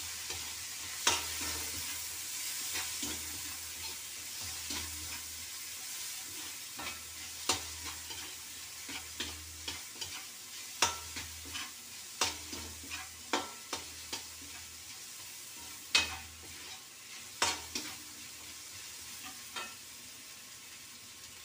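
Boiled chicken pieces frying with garlic and onion in a metal wok: a steady soft sizzle under irregular sharp clicks and scrapes of a metal ladle stirring against the pan. The stirring stops near the end, leaving the sizzle.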